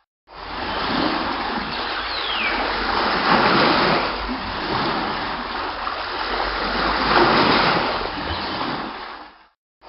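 Sea water splashing and washing, with two louder swells about three and seven seconds in.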